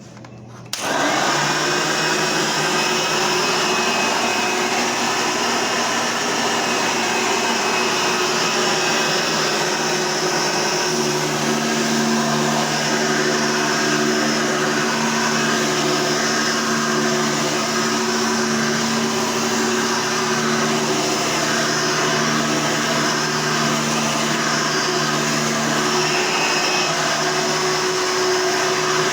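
10-amp Hoover Elite upright vacuum cleaner switched on about a second in, its motor spinning up with a rising whine, then running steadily at full speed.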